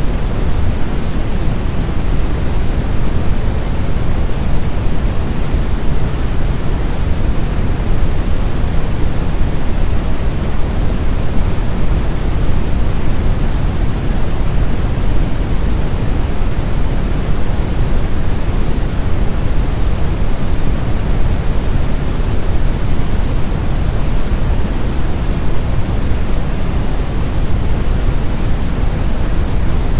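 Steady, deep brown noise: an even rumbling hiss with most of its energy in the bass, unchanging throughout.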